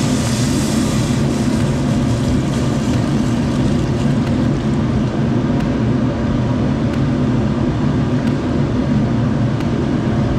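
Kitchen exhaust hood fan running with a steady low drone. In the first second or so, water poured from a saucepan into the hot stockpot of browned pork and vegetables hisses and splashes.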